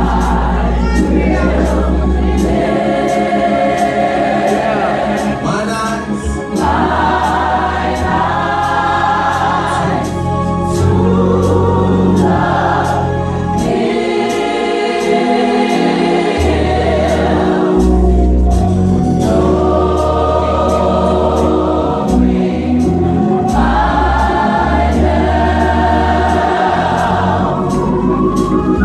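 Gospel choir singing slow, sustained chords, with instrumental accompaniment holding low bass notes beneath the voices.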